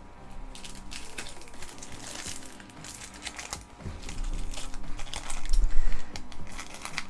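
Trading cards and their packaging being handled: rustling, crinkling and small clicks, with a few low thumps near the end, the loudest about six seconds in. Soft background music plays throughout.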